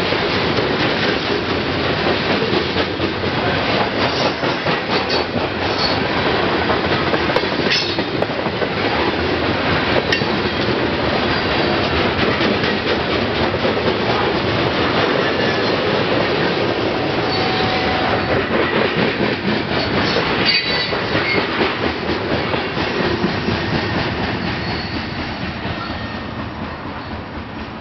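Freight train of steel coal hopper cars rolling past at trackside: a steady rumble with clattering wheels over rail joints and a few brief high wheel squeals. It fades as the last car goes by and rolls away near the end.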